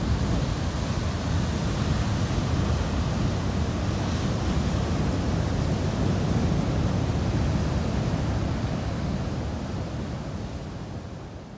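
Heavy ocean surf: a steady, even rush of noise that fades out over the last few seconds.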